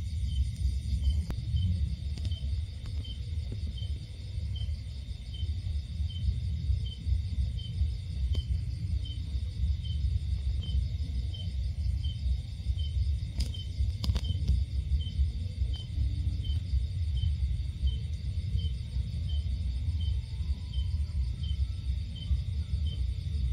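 Night insects, crickets, chirping: a steady high trill with a regular chirp about twice a second. Under it runs a loud, steady low rumble.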